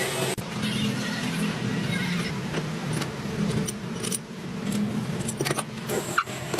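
A steady machine hum with scattered sharp metallic clinks and taps, the loudest about six seconds in.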